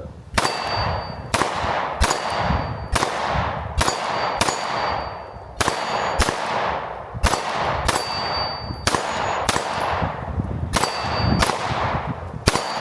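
Sig P365 X Macro 9mm pistol fired in a fast string of shots, roughly two a second, with a high metallic ring after several of them. The ring is typical of rounds hitting steel targets.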